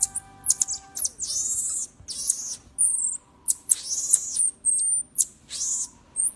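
Baby marmosets calling: a series of shrill, high-pitched chirps and longer squeaky calls, several in quick succession.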